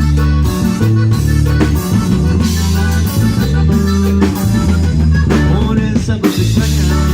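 Live band playing an instrumental passage with no singing: drum kit keeping the beat under a prominent bass line and guitar.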